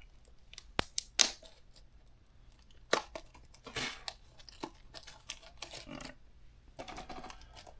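Trading card packaging being handled: a few sharp clicks and taps, with brief bits of crinkling and tearing of plastic wrap or foil.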